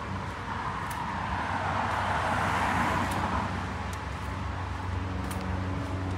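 A road vehicle passing nearby: its noise swells and fades over about two seconds near the middle, over a steady low engine hum. A few faint footsteps on the dirt trail.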